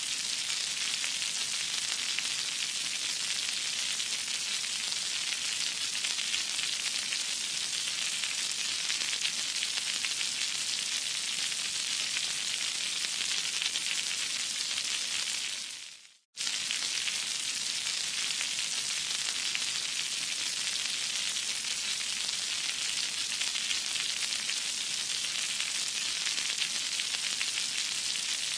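Eggs frying in a pan, a steady sizzle. About sixteen seconds in it fades out to a moment of silence, then starts again abruptly at full level.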